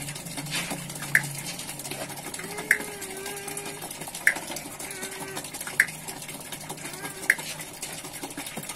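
Small water wheel made of PVC pipe turning over a tub: water splashing steadily, with a sharp click about every one and a half seconds from the turning mechanism.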